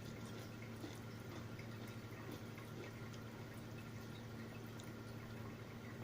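Faint wet mouth sounds of someone chewing instant noodles: small scattered clicks and smacks over a steady low hum.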